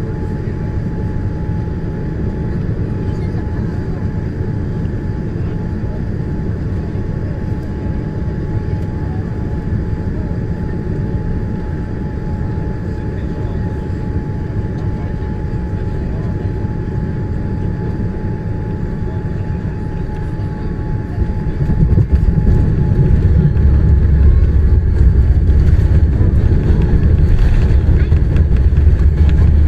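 Boeing 787-9 airliner cabin noise: a steady rush with a faint steady tone. About two-thirds of the way in it jumps to a much louder low rumble, which fits the touchdown and landing roll.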